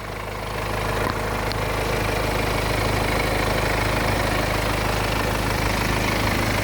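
BMW 318d's 2.0-litre four-cylinder turbo diesel idling steadily, getting louder over about the first second.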